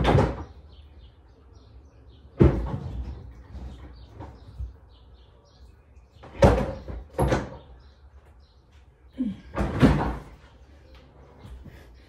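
Knocks and bangs of household handling, about five, spaced a few seconds apart, with the loudest at the very start.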